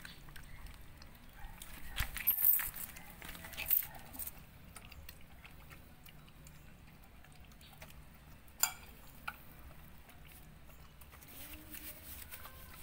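A dog eating wet tuna, with scattered sharp wet clicks and smacks of chewing and lapping. A cluster comes a couple of seconds in and a single louder one near the middle.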